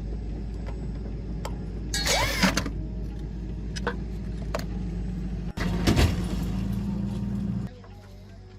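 A machine running with a steady low hum, broken by two short, loud noisy bursts about two and six seconds in. The hum drops away abruptly near the end.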